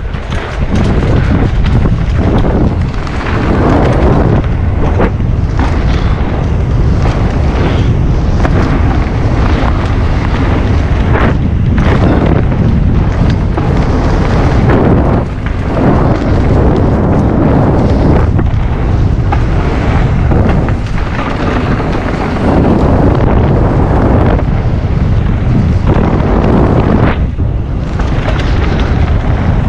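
Heavy wind buffeting on an action camera's microphone during a fast descent on a Specialized Turbo Levo e-mountain bike, with the tyres and bike rattling and knocking over the rough trail. The noise is loud and continuous, easing briefly a few times.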